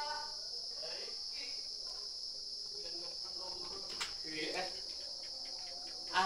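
Crickets chirring in a steady high-pitched trill, with one sharp click about four seconds in.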